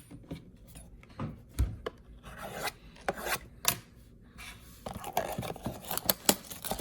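Hands opening a sealed trading-card box: rubbing and scraping of cardboard and plastic wrap in a string of short scrapes and clicks that gets busier about five seconds in.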